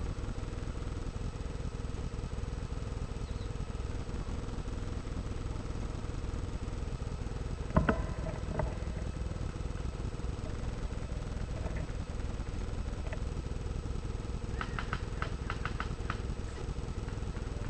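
Steady low rumbling noise on a rifle-mounted camera's microphone. One sharp click comes about eight seconds in, with a smaller one just after. A quick run of about eight light ticks comes near the end.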